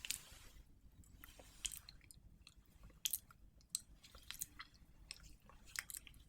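Irregular wet, sticky clicks and squishes close to the microphone, scattered unevenly and fairly faint.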